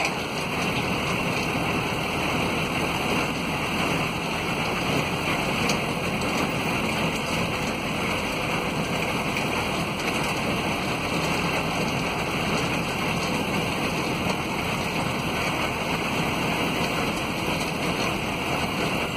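Steady rushing noise of a vehicle driving along a road, heard from inside through an open window: engine, tyre and wind noise with no sharp events.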